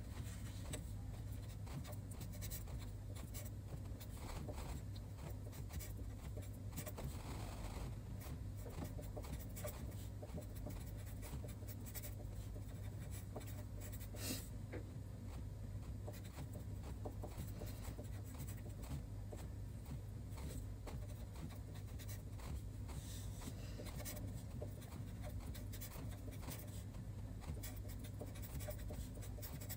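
Pen scratching on paper while writing Chinese characters by hand, a run of short strokes and lifts, over a steady low hum. One sharper tick about fourteen seconds in.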